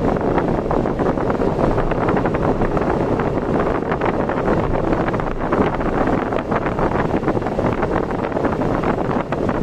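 Wind buffeting the microphone over steady road noise from a vehicle travelling at speed.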